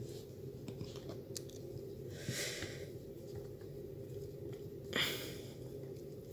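Faint ticks of a hand screwdriver working a small gearbox screw over a low steady hum, with two short hisses, a soft one about two seconds in and a louder one about five seconds in.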